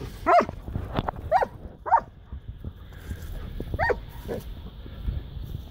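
Dog barking in about five short, pitched barks spread over the first four seconds, as two dogs play together.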